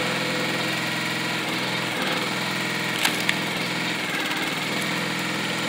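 Small engine of a hydraulic log splitter running steadily while the ram pushes a round of wood against the wedge; about three seconds in the wood splits with two sharp cracks a fraction of a second apart.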